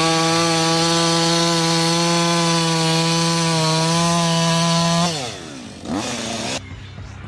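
Chainsaw running at high, steady revs for about five seconds, then its pitch falls away as it slows down.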